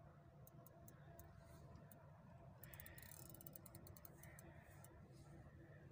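Quiet, faint irregular ticking of a fishing reel winding in line on a bent carp rod while a hooked fish is played, over a low steady rumble.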